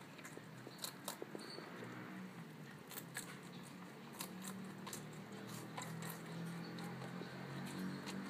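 Mini lop rabbit chewing a crisp anise stalk: quick, irregular crunching and snapping bites.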